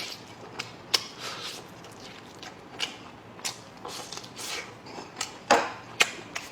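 Close-up eating sounds: chewing and mouth smacks with scattered sharp clicks, and one louder smacking or slurping noise about five and a half seconds in.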